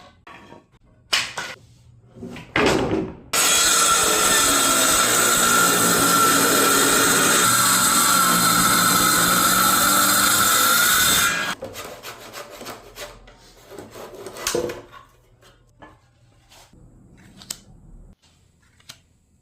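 A handheld power tool on wood runs loudly and steadily with a whine for about eight seconds, then stops suddenly. Scattered knocks and clatter of wood being handled come before and after it.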